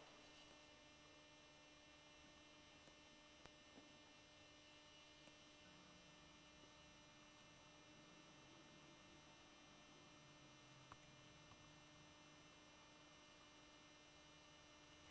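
Near silence: a faint steady electrical hum, with a few tiny clicks.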